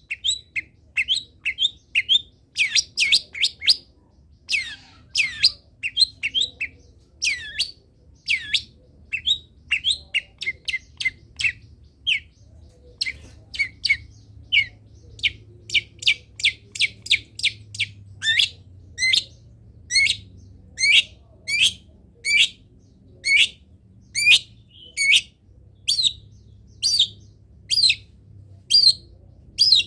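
Long-tailed shrike (cendet) calling with sharp, downward-sweeping chirps. The chirps come in quick clusters at first, then settle after about fourteen seconds into an even run of about two a second.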